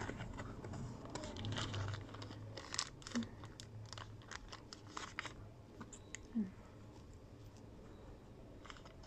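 Paper and cardboard earbuds packaging being handled: rustling with many light clicks and taps as the box's inner flap is opened and paper sachets of spare ear tips are fingered, busiest in the first half and sparser near the end.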